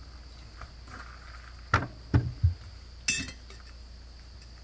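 A ceramic mug and a stainless steel tumbler knocked and clinked on a kitchen countertop while tea is made: three short knocks about two seconds in, then one sharper, brighter clink about a second later.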